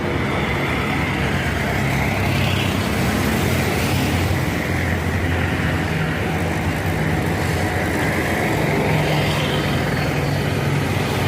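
Diesel engine of heavy construction machinery running steadily, with a low engine drone and a broad mechanical noise over it.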